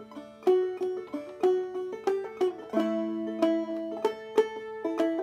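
Open-back banjo in Double D tuning played clawhammer style: a phrase of plucked notes and strums on the four chord, G, changing to another chord about three seconds in.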